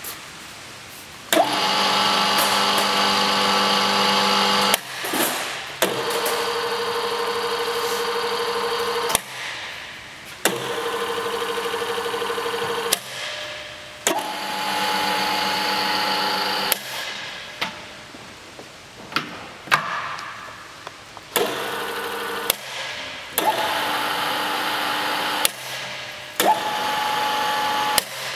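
Foradia GK 50/1500 radial drill's spindle drive running in short bursts of a few seconds each, about eight times, each with a steady gear whine at a different pitch as the speeds are changed and the spindle reversed. A sharp click marks each start and stop.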